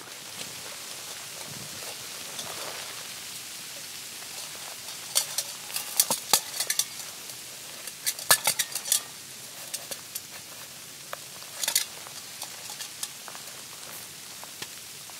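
Dry, fresh snow crunching in clusters of sharp crackles as it is scooped and pressed by hand, over a steady hiss.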